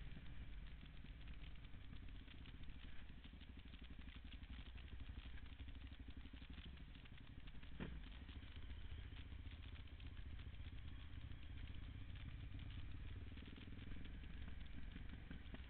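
Off-road motorcycle engine running steadily at low speed on a rough dirt track, with the bike clattering over the bumps and a single sharp knock about eight seconds in.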